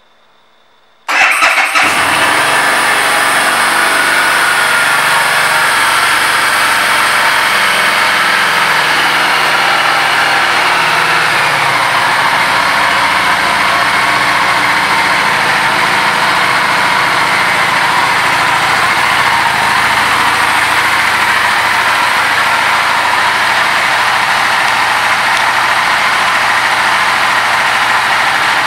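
2015 Harley-Davidson Street 750's liquid-cooled 749 cc V-twin starting up about a second in, then idling steadily.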